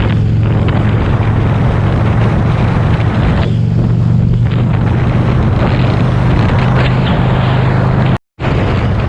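Motorcycle engine running steadily at cruising speed, with heavy wind rush over the microphone. The sound drops out briefly near the end.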